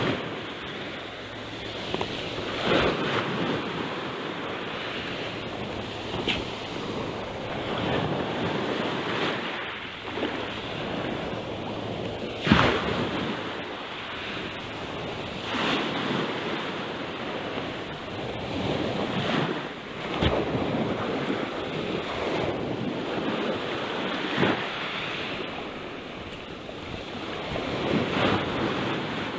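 Sea surf washing over shoreline rocks, swelling and breaking again every few seconds, with wind on the microphone.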